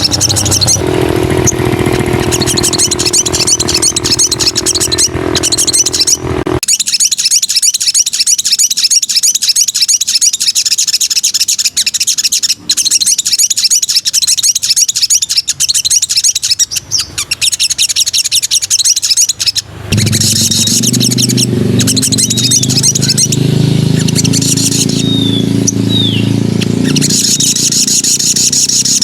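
Spiderhunter (sogok ontong) singing a fast, unbroken run of rapid high-pitched notes, with a few short falling chirps near the end. A low hum sits under it for the first few seconds and comes back about two-thirds of the way through.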